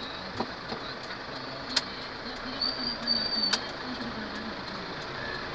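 Steady cabin noise of a vehicle driving, heard from inside. A few sharp clicks, and a steady high beep of about a second around the middle.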